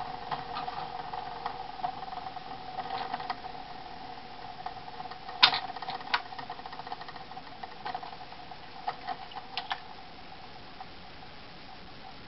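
Propeller of a rubber-band-powered balsa model Cessna 180 whirring steadily on its unwinding rubber motor, with irregular clicks and knocks, the loudest about five and a half seconds in. The whirr fades away after about ten seconds as the wound motor runs down near the end of its run.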